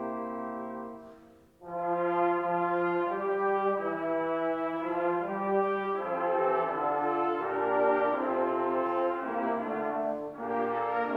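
Organ playing a slow hymn in held chords. One phrase fades out about a second in, and after a short break the next begins. There is a brief break again near the end.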